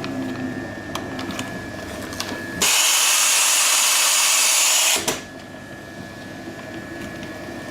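Horizontal continuous band sealer running with a steady motor whine and faint clicks from its drive. About two and a half seconds in, a loud hiss of compressed air from its gas-filling nozzle starts and cuts off abruptly a little over two seconds later.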